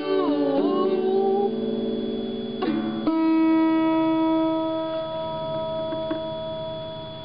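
A held sung note that bends in pitch, then two strums on a First Act acoustic guitar about three seconds in. The final chord rings on and slowly fades.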